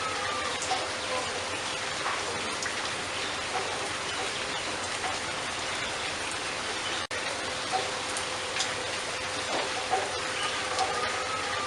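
Steady rain pattering, with many small drop ticks and a few faint short bird calls over it; the sound cuts out for an instant about seven seconds in.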